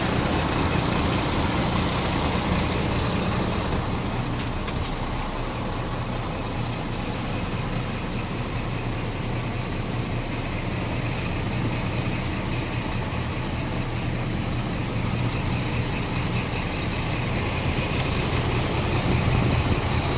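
Scania R420 truck's straight-six diesel engine idling steadily, heard from inside the cab, with a few light clicks about four and a half seconds in.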